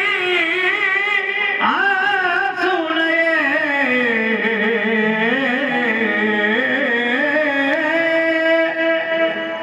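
A single voice singing a long, ornamented devotional melisma without words, the pitch sliding and wavering down and back up, with a steady accompanying note held underneath in the second half.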